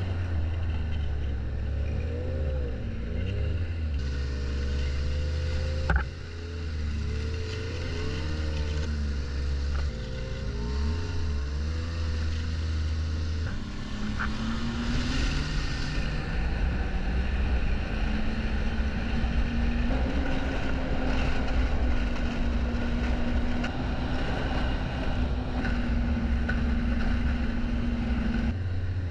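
Ski-Doo snowmobile engine and track running under the rider, the engine note wavering up and down through the first half. About halfway it climbs steadily as the sled speeds up, then holds a high steady note. A single sharp knock comes about six seconds in.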